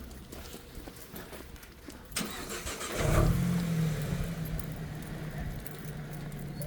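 A nearby car's engine starts about three seconds in, with a loud catch, then settles into a steady idle. A sharp click comes just before it.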